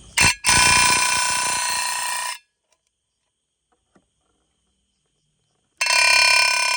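Electronic bird caller playing a recorded white-breasted waterhen (ruak-ruak) call through its loudspeaker. Loud and steady for about two seconds, it cuts off abruptly and starts again near the end.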